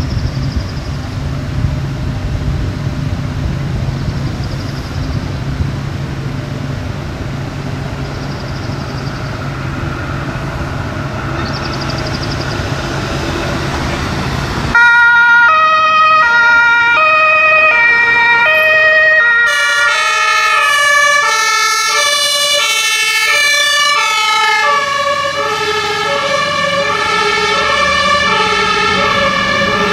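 Fire engine's diesel engine running as the truck pulls out. About halfway through, its two-tone horn (Martinhorn) switches on abruptly, switching back and forth between two pitches, and grows fuller a few seconds later as the truck drives off.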